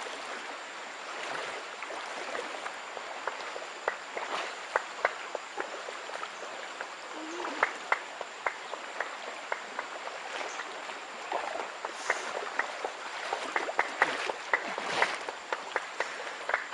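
A rocky stream running steadily, with many short, sharp clicks and knocks scattered throughout.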